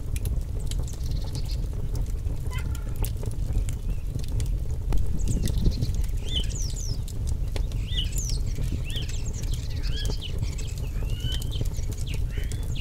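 Birds chirping in short, bending calls, many of them from about six seconds on, over the scattered crackle of a wood fire and a steady low rumble.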